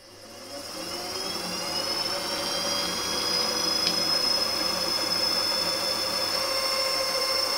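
Benchtop milling machine's spindle motor starting up and spinning a 4.2 mm drill bit. It runs up to speed with a rising whine over the first couple of seconds, then runs steadily with a high whine.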